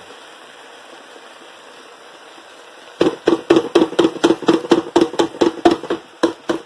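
Metal can of pork and beans knocked rapidly and repeatedly against the cooking pot to shake the beans out, starting about three seconds in after a faint steady hiss.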